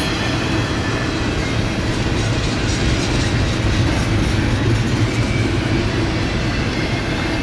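Double-stack intermodal freight train's container-laden well cars rolling past at steady speed: a continuous loud rumble of steel wheels on rail, with a clickety-clack over the rail joints.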